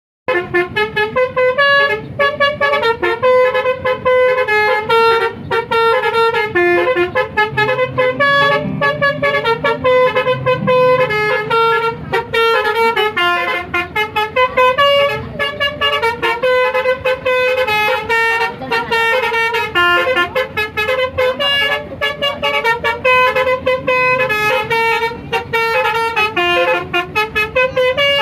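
Bus 'telolet basuri' horn, a multi-trumpet melodic air horn, playing a fast tune that steps quickly from note to note without a pause. A lower steady tone sounds underneath for a few seconds about eight seconds in.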